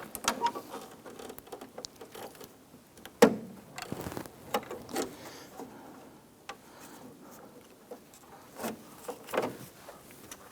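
Scattered clicks and small knocks of a metal door-latch rod and plastic retaining clip being handled and fitted to an interior door handle inside a car door, with one sharper click about three seconds in.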